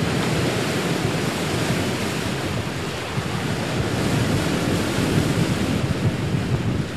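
Steady rush of ocean waves and wind.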